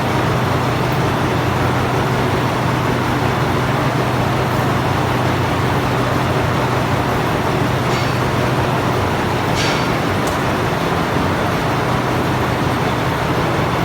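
Machine-shop lathe running steadily while machining a JCB hub: a constant hum under broad machining noise, with a few short, sharp high-pitched scrapes about two-thirds of the way through.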